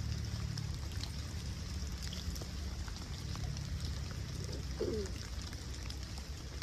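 Light rain pattering in small scattered ticks over a steady low rumble of wind on the microphone, with one short falling sound about five seconds in.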